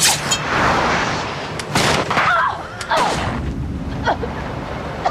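A loud, sharp gunshot right at the start, with a long ringing tail, followed by several more sharp cracks and short cries in a struggle.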